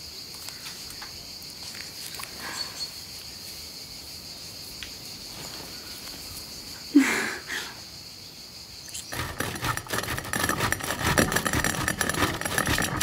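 Insects chirring steadily in a high, even drone, with a brief loud sound about seven seconds in. About nine seconds in this gives way to cheese being grated on a metal box grater, a rapid run of repeated scraping strokes that is the loudest sound.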